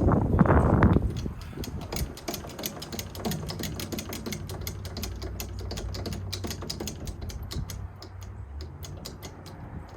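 Rapid, even ratcheting clicks, several a second, as the cab of a 1968 International Transtar cabover is jacked up. A louder rustling clatter comes in the first second, and a low hum underneath dies away near the end.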